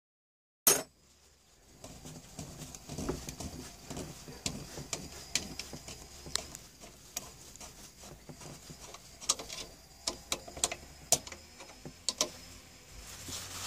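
Irregular small metallic clicks and taps of a fuel pipe fitting being worked loose by hand at a marine engine's carburetor inlet, with a rag rustling around it. A sharp click comes about a second in.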